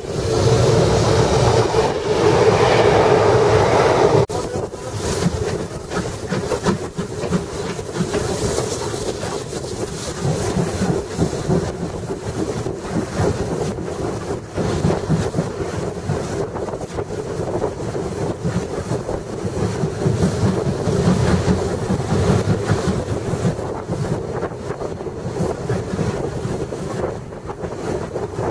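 Double-headed steam train, B3 No.130 running behind H3 No.10, on the move: steady running noise with rhythmic wheel clatter and wind on the microphone. A louder rush of an oncoming train passing on the next track fills the first four seconds and cuts off sharply.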